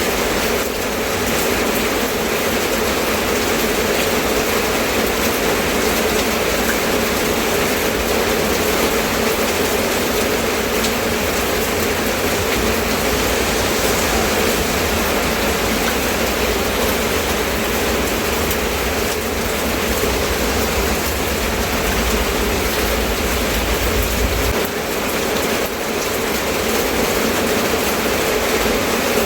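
Steady rain, an even hiss with a low rumble underneath that stops about twenty-five seconds in.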